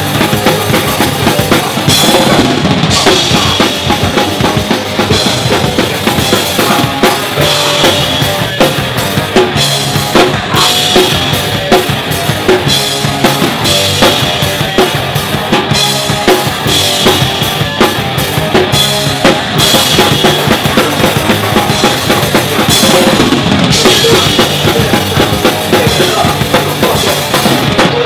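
Hardcore punk band playing live: loud, dense full-band music driven by a drum kit, with kick and snare hits throughout.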